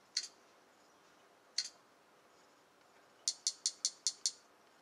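Key-press clicks from typing on a smartphone's on-screen keyboard. There are two single clicks, then a quick run of six clicks in about a second as keys are tapped.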